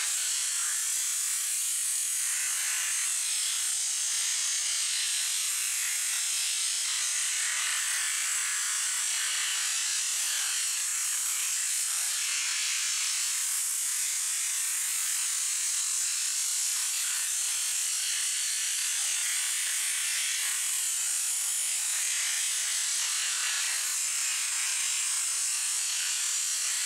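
High-pressure washer jet blasting water onto raw mackerel and concrete, a steady high hiss that never lets up.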